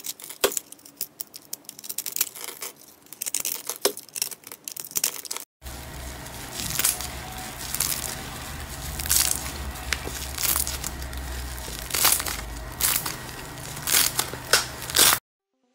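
Box-cutter blade slicing through a pre-scored yellow block, small cubes breaking off with quick crunchy clicks. About five and a half seconds in, this gives way to sticky red slime being pressed and pulled with fingers in a plastic tub, with sharp sticky pops every second or so over a low steady hum.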